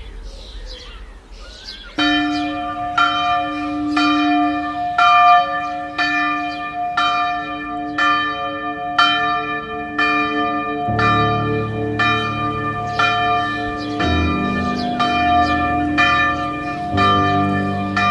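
Background music: a bell-like chime struck evenly about once a second, with slow low chords coming in partway through and changing every few seconds.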